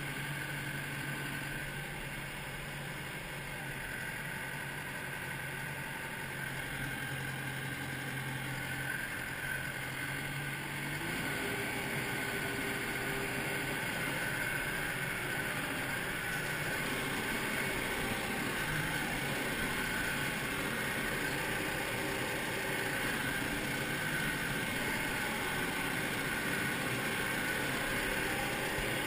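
Red compact tractor's engine running steadily as it is driven over a field; about eleven seconds in its note steps up and it gets a little louder.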